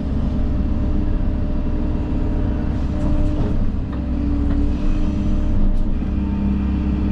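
Heavy earthmoving machine's engine running steadily, a constant low drone whose pitch dips slightly about halfway through.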